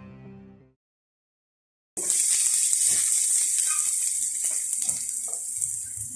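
Onion and garlic sizzling in hot oil in a metal pan, stirred with a wooden spatula that taps and scrapes faintly against the pan. The sizzle starts suddenly about two seconds in, after a short silence.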